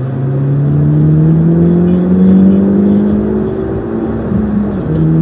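Vehicle engine under acceleration, its note climbing steadily for about four seconds, then dropping abruptly near the end as it shifts up a gear and running on at a steady pitch.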